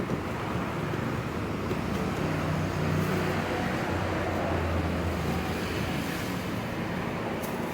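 Steady street traffic noise, with a motor vehicle's engine hum swelling about halfway through and then easing off.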